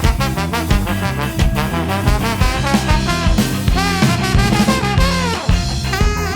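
Live ska-jazz band playing: a horn section of alto sax, trombone and trumpet plays a swinging melody over walking electric bass and drums. Near the end the horns break briefly and then hold long notes.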